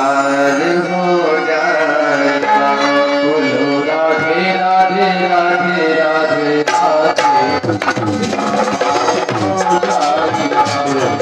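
Harmonium playing a bhajan melody in sustained reedy chords, with hand-drum strokes, likely tabla, coming in thick and fast about two-thirds of the way through.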